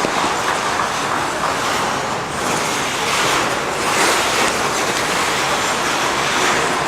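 Audience in an ice rink applauding and cheering: a dense, steady wash of claps and voices that swells about halfway through.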